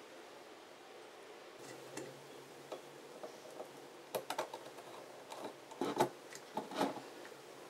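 Light clicks and ticks of speaker wire ends being fitted to a small amplifier board and the board being handled on a cutting mat. The ticks come in small clusters, most of them in the second half.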